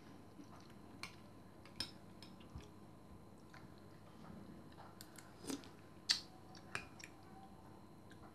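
A metal spoon and fork clinking now and then against a ceramic soup bowl while scooping soup: a handful of short, scattered clinks, the loudest about six seconds in.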